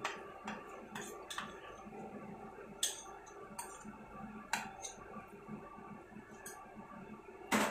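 Scattered light clinks and taps as a glass bowl of cashew paste is scraped and knocked against a steel kadai, about nine in all, the sharpest near the end, over a steady low hum.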